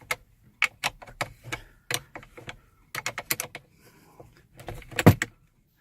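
A 10mm spanner undoing the nut on a car battery's negative (earth) terminal clamp: a string of sharp metallic clicks and taps, some in quick clusters, with a louder knock about five seconds in.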